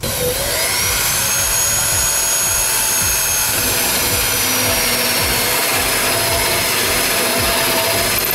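Corded electric drill starting with a quick rise in pitch, then running steadily at full speed as it drills out a hole to enlarge it for a cable.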